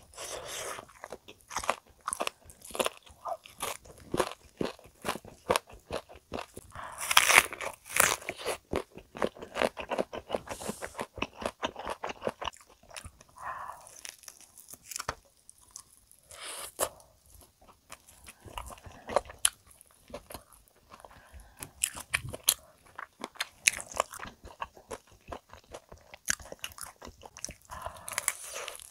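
Close-miked crunching and chewing as crispy fried chicken is bitten: many sharp crackly crunches with quieter chewing between them. The densest, loudest crunching comes about seven seconds in.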